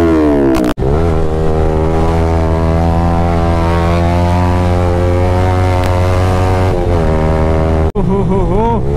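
Yamaha 155 cc single-cylinder motorcycle engine through a loud aftermarket Akrapovic exhaust, held at steady high revs in one unbroken drone for about seven seconds. The sound drops out briefly twice, under a second in and near the end, and after the second break the revs swing up and down.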